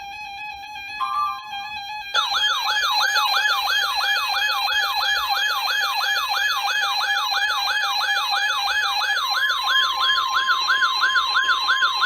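Electronic weather-alert tones from NOAA Weather Radio: steady beeping tones, then a loud siren-like warbling tone about two seconds in, sweeping up and down about three times a second. A steady warning tone joins it near the end. The alert comes just before a severe thunderstorm warning is read out.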